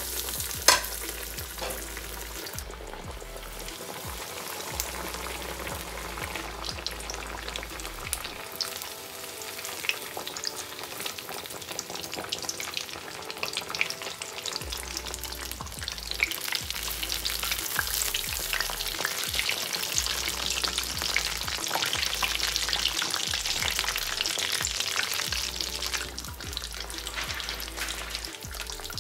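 Breaded paneer slabs deep-frying in hot oil in an iron kadai: steady sizzling and crackling, with sharp clicks here and there, the loudest about a second in.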